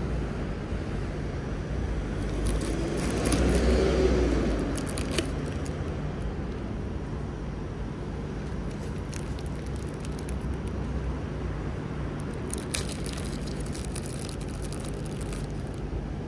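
Thin plastic bag crinkling in bursts, a few seconds in and again near the end, as a chilled baked sweet potato is pulled out of it. Under it runs a steady low traffic hum that swells a few seconds in.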